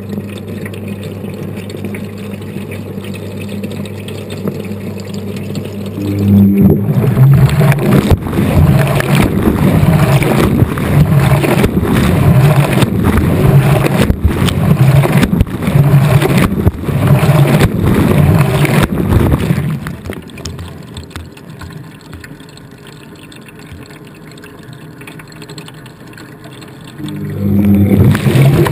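Washing machine mid-cycle, heard from inside the drum. It starts with a steady hum; about six seconds in, the drum starts turning and water and laundry slosh in a regular rhythm. This eases off around twenty seconds in and starts again near the end.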